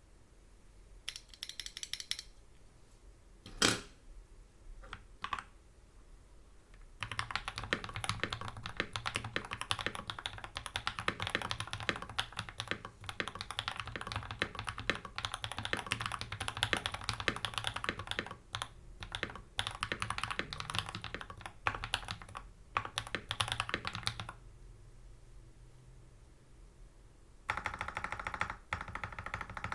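Typing on a freshly modded Everglide SK98 mechanical keyboard with a metal plate, tape mod, PE foam and tuned stabilizers. A few scattered keystrokes at first, then fast continuous typing for about seventeen seconds, a pause, and typing again near the end.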